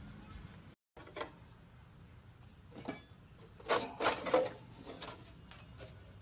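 Scattered clicks and knocks of hand tools and metal parts being handled while a lawn mower is taken apart to reach the intake manifold gaskets, loudest in a cluster about four seconds in. The sound cuts out completely for a moment near the start.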